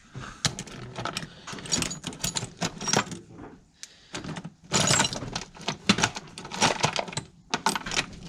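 Small metal hardware, nuts and washers, clinking and rattling as it is handled and sorted through: a quick, irregular run of clicks and jingles, densest about five seconds in.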